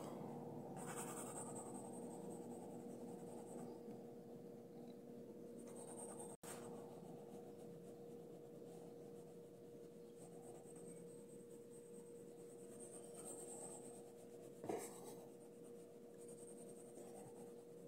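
Faint pencil scratching on paper in short spells of drawing strokes, over a steady low hum. A single soft click comes near the end.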